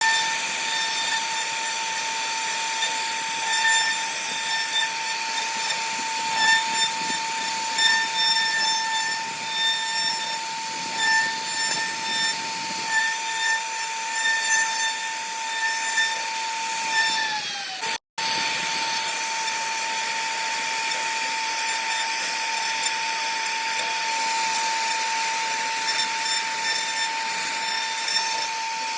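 CNC router spindle running with a steady high-pitched whine while the bit carves wood, the cutting noise rising and falling with each pass. About two-thirds through, the pitch sags and the sound cuts out for an instant before the whine resumes.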